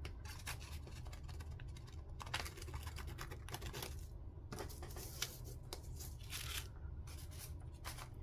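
Scissors cutting a doily: a run of quiet, short, irregular snips.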